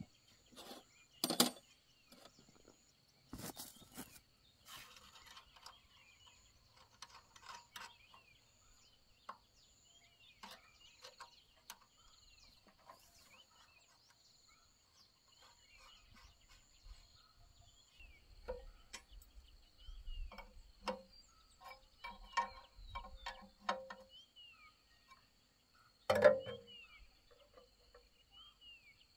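Scattered knocks and clinks, the loudest about a second in and again near the end, with a run of lighter taps in the second half, over a steady high insect trill and bird chirps.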